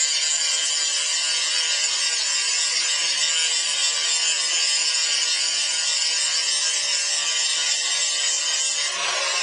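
Angle grinder with an abrasive disc grinding the surface of a hot bloomery iron bloom, a steady high-pitched grinding hiss as the disc polishes the metal and throws sparks.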